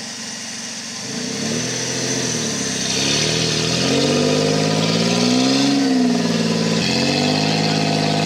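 Off-road competition buggy's engine revving under load while bogged in deep mud. The pitch climbs and wavers over the first few seconds, peaks about two-thirds of the way in, drops suddenly, then holds at a steady higher rev.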